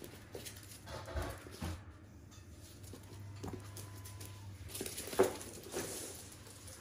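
Small terriers' paws and claws pattering and scuffling on a laminate floor as they run and play, with a few soft knocks; the sharpest comes about five seconds in.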